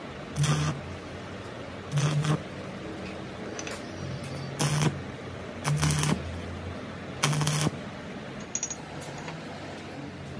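Stick (arc) welding on a steel socket cup of a steering rack end: five short bursts of arc crackle, each about half a second, each with a low electrical buzz from the welder. These are quick tack welds struck one after another.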